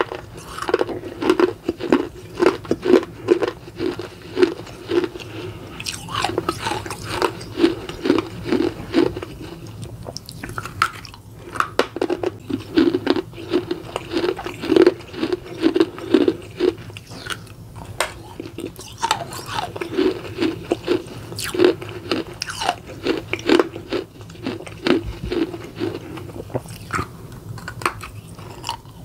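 Crunching and chewing of a piece of a miniature baked clay pot, in runs of about two to three crunches a second with short pauses between them.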